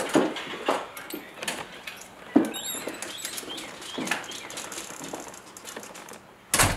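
Footsteps of several people walking across a hard kitchen floor, uneven clicks and taps with light clatter. Near the end comes a single loud thump, a door shutting.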